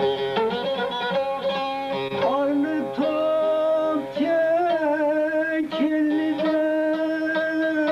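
Folk music on a plucked string instrument, with a long, wavering melody line held over steady drone notes that dips and bends every second or so.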